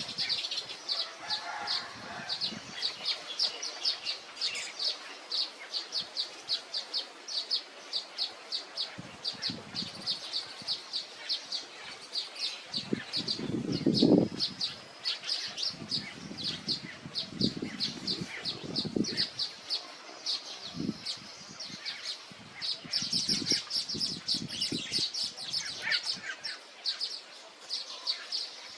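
A small bird chirping over and over, a short high chirp about three times a second, with a few dull low thuds around the middle.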